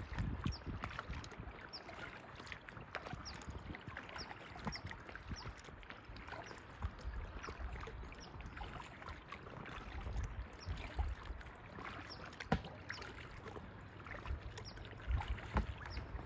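Water lapping and dripping around a kayak, with scattered small knocks and splashes. A bird repeats a short, high, falling chirp about every three-quarters of a second through the first half.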